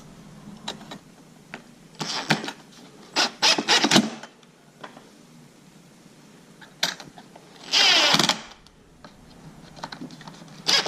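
Hand-tool work on a plastic leaf-blower housing: a screw being driven in, with a few short clicks, rattles and one longer scrape about eight seconds in.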